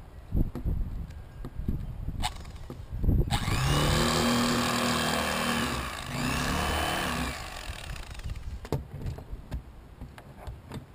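Electric fillet knife running in two bursts, about three seconds in and again just after six seconds, each one winding up at the start and winding down at the end, as it cuts the rib cage out of a fish fillet. A few knocks of handling come before and after.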